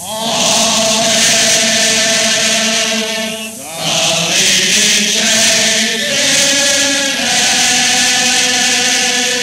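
Chorus singing with a pit orchestra in an early sound-film recording, holding long notes as a big closing chord. The sound dips briefly about three and a half seconds in, then a new chord is held.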